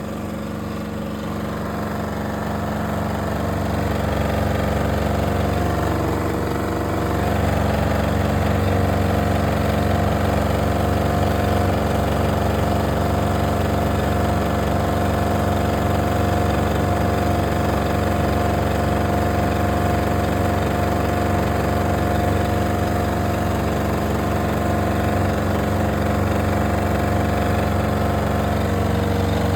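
Electric fan running with a steady mechanical hum, getting louder over the first several seconds and then holding level.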